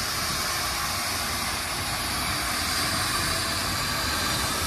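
Steam locomotive moving slowly past a platform, giving off a steady hiss of steam with no distinct chuffs.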